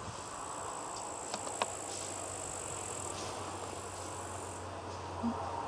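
A steady, high-pitched insect trill that stops about four and a half seconds in, over a faint low hum.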